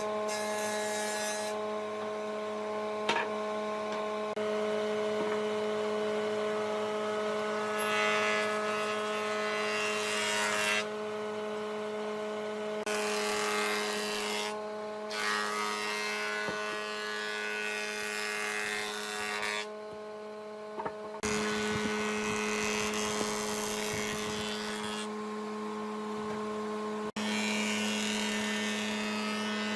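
Electric power tool running on wood, a steady motor whine under the hiss of cutting or sanding, the hiss changing abruptly several times.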